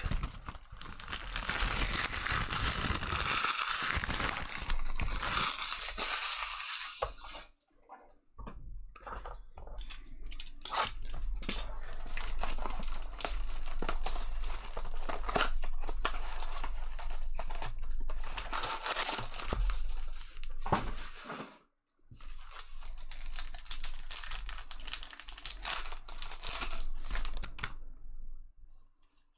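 Foil trading-card pack wrappers being torn open and crinkled, a dense run of ripping and rustling with two short pauses.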